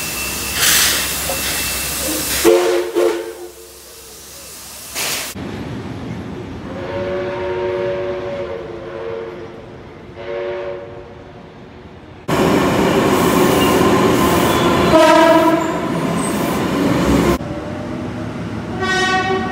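A run of separate train sound clips: a steam locomotive hissing steam, then a diesel locomotive sounding two long blasts on its multi-chime horn as it approaches. Then a train running loudly past with a horn blast, and a short horn blast from a double-deck electric suburban train.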